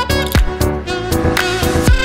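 Background music with a steady beat, about two beats a second, under a held melodic line.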